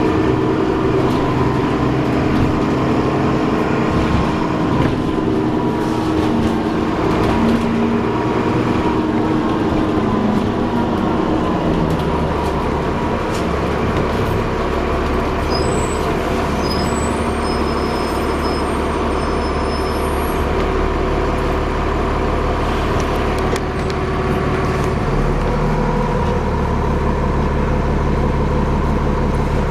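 Alexander Dennis Enviro400 double-decker bus running, heard from on board: steady engine and driveline noise with a whirring whine that changes pitch as the bus speeds up and slows. A few short high squeaks come around the middle.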